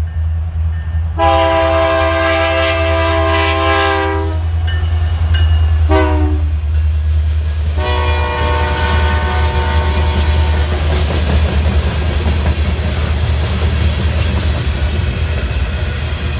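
Passing freight train: the diesel locomotive's air horn sounds a long blast, then a short one whose pitch drops as the locomotive goes by, then another long blast that fades, all over the low engine rumble. Then the freight cars roll past with steady clickety-clack wheel and rail noise.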